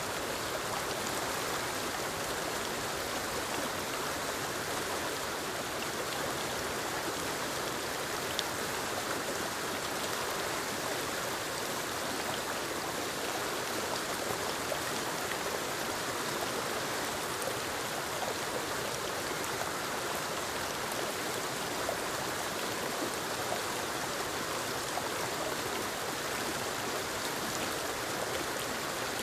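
Small forest waterfall spilling over rocks into a stream: a steady rush of falling and running water with faint splashes and trickles.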